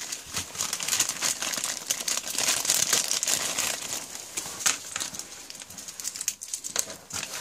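A thin clear plastic bag crinkling as hands open it and pull out a bundle of nylon battery straps. The crinkling is densest for the first four seconds or so, then thins to occasional rustles and light clicks.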